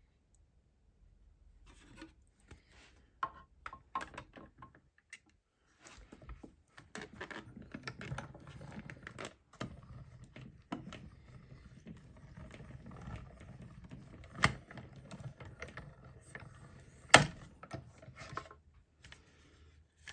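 Paper card stock and small craft tools being handled on a table: irregular clicks, taps and rustling that start about two seconds in, with two sharper clicks near the end.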